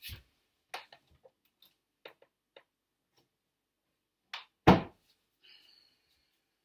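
Rummaging in a storage box: short rustles and light knocks, then a single loud thump a little before the end.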